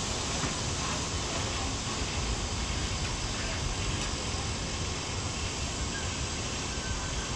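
Steady hiss and hum of a stationary ITX-Maeum electric train standing at a platform with its doors open, with voices faintly mixed in.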